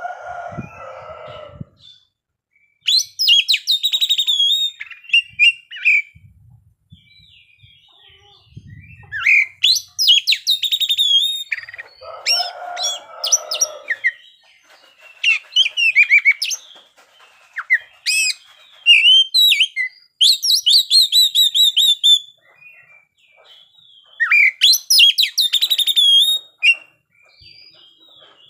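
Oriental magpie-robin singing in loud bursts of rapid, high whistles and trills, with short pauses between the phrases.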